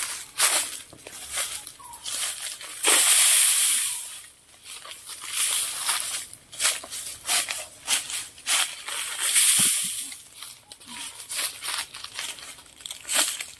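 Footsteps crunching and rustling through dry bamboo leaf litter, with two longer rushing rustles about three and nine seconds in.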